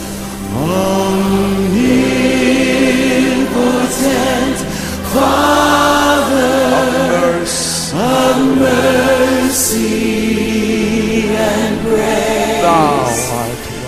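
Background music: a song with a sung melody over a steady accompaniment, the voice swooping up into long held notes.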